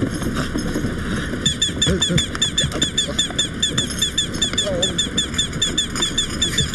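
Cartoon toy duck honking: a rapid, steady string of short squeaky quacks, about four a second. A man's low grunts and mumbles sound underneath.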